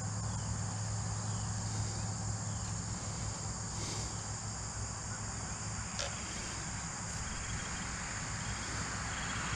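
Crickets and other insects chirping steadily over a low outdoor rumble; near the end the noise of an approaching vehicle starts to rise.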